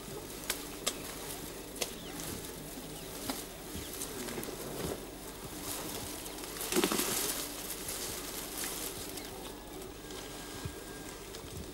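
Rustling in tall dry grass, with a few sharp clicks in the first two seconds and a louder swishing rustle about seven seconds in.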